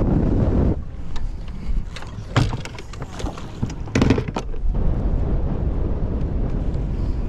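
Bass boat under way in strong wind: dense low rumble of wind and motor that drops away about a second in. A string of sharp knocks and clatters follows through the middle, then the rumble returns.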